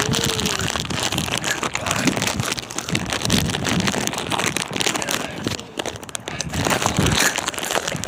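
Dense crackling and rustling close to the microphone throughout, with a few brief bits of voice.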